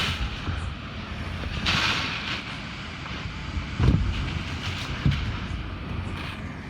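Strong typhoon wind buffeting the microphone: a steady low rumble with gusts of hiss, and a sharp thump about four seconds in.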